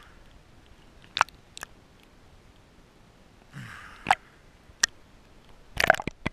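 Water slapping and splashing against a waterproof action camera held at the sea surface as it bobs above and below the waterline: a string of sharp clicks and knocks, a short rushing splash a little past halfway, and a cluster of knocks near the end.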